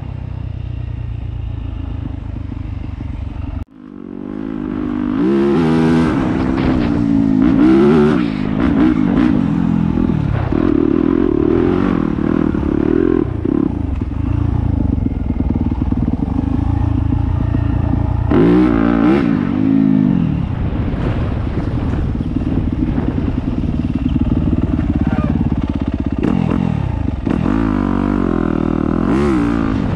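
Dirt bike engine running under way on a gravel trail, revving up and falling back again and again as the rider works the throttle and gears. About four seconds in the sound drops out briefly, then comes back louder.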